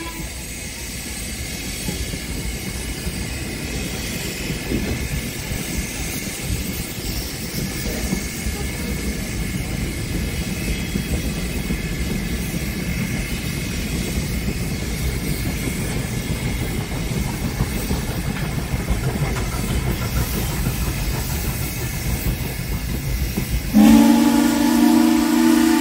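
Passenger coaches of a steam train rolling past, a steady rumble of wheels on rails. Near the end the train's steam locomotive, Frisco #1630, a 2-10-0 Decapod, starts blowing its whistle: a loud, steady chord of several notes.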